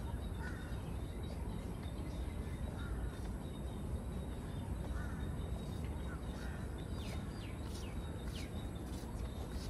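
Birds calling in park greenery: scattered short chirps, then a quick run of falling whistled calls near the end, over a steady low background rumble.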